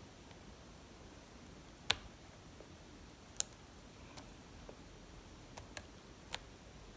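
Small, sharp metallic clicks of a lock pick and tension wrench working the spool pins of a Lockwood 334 pin-tumbler lock during picking, about six irregular clicks with the two loudest about two and three and a half seconds in.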